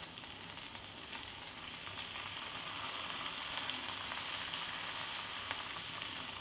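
Spice-coated potato slices sizzling in oil in a pan on a low gas flame: a steady frying hiss with faint crackles, growing a little louder after a couple of seconds.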